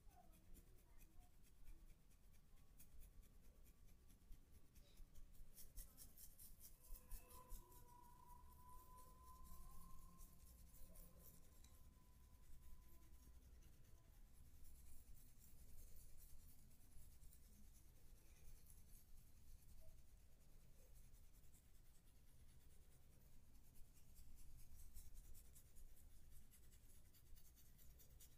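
Faint, soft rubbing and scratching of hands massaging a person's back. A faint thin steady tone comes in briefly about eight seconds in.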